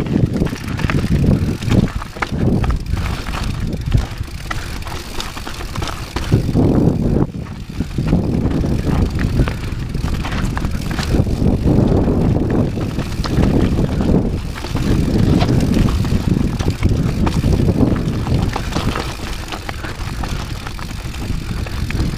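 Rocky Mountain 790 MSL mountain bike riding fast down a loose, stony trail: the tyres crunch over gravel and rock and the bike rattles and knocks on the bumps, over a constant low rumble that swells and eases as the trail changes.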